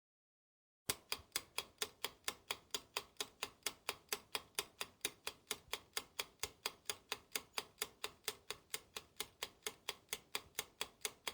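Clock-style ticking, fast and even at about four to five ticks a second, starting abruptly about a second in out of dead silence and stopping abruptly: a countdown-timer tick sound effect.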